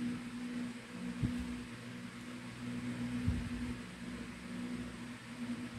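Steady low electrical hum, with two soft low knocks, about a second in and past three seconds, as multimeter test probes and motor winding leads are handled.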